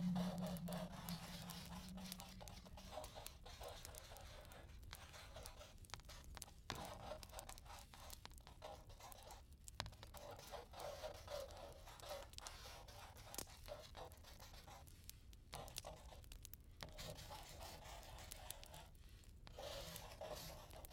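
Faint, irregular scratching and crackling, with many small clicks and brief gaps.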